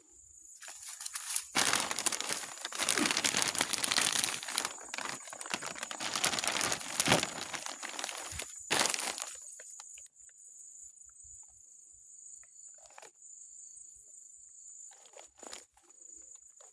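Loud crinkling and rustling, as of something being crumpled or handled, for about seven seconds, then dying down to a few small rustles. A steady high-pitched thin tone runs underneath.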